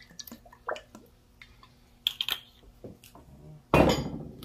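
Olive oil poured from a bottle onto raw cut vegetables in an enamelled cast-iron Dutch oven: light drips and small clicks. A loud, sudden knock near the end fades over about half a second.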